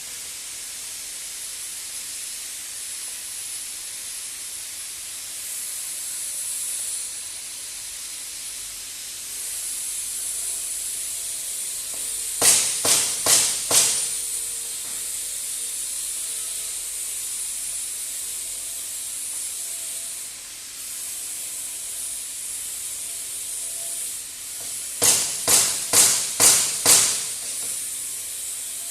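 TIG welding arc giving a steady hiss with a thin high whine. About halfway through and again near the end, a quick run of four or five sharp clicks cuts in.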